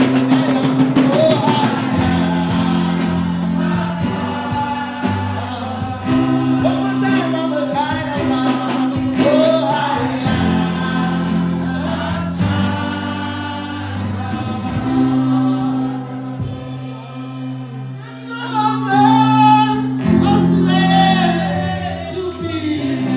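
Gospel worship music: singers over sustained keyboard chords and a bass line, with percussion in the first few seconds.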